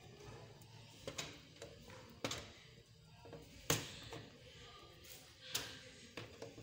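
Metal pliers clicking and tapping against a TV's sheet-metal backlight panel as a new LED backlight strip is pressed down onto it: a handful of sharp taps at uneven intervals, the loudest near the middle, over a low hum.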